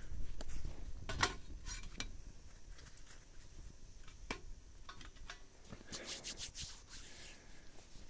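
Close handling noises: rubbing and scraping with scattered light clicks and knocks, busiest at the start and again near the end.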